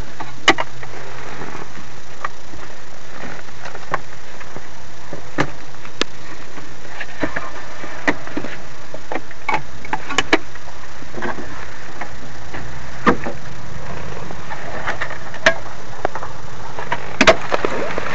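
Handling noise from a handheld camera: irregular sharp clicks and knocks over a steady background hiss.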